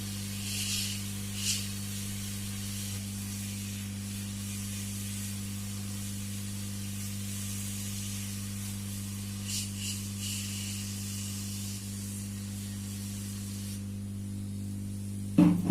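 Hot air gun blowing a steady hiss of hot air over a circuit board to dry off thinner, with a low steady hum beneath. The airflow swells twice, then cuts off near the end, followed by a sharp knock.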